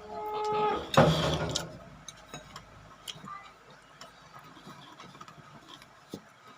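Close-up eating sounds: scattered small clicks and crunches of chewing, with a louder noisy burst about a second in.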